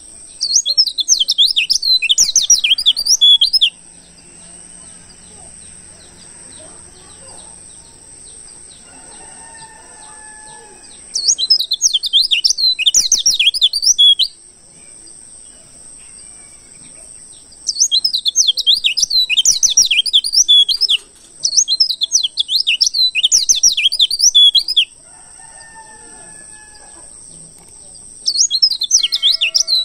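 Wild white-eye (pleci) song: bouts of rapid, high twittering chirps about three seconds long, five in all with short pauses between, over a steady high-pitched whine.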